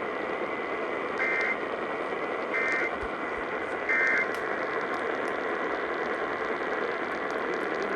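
Three short bursts of EAS digital data tones, evenly spaced about a second and a half apart, over a steady radio hiss. They are the End of Message code that closes the emergency alert test.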